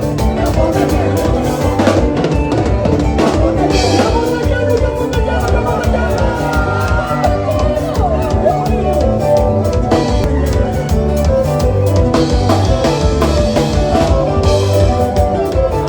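Live band music with a steady drum-kit beat (kick, snare and rimshots) under bass and melodic instrument lines.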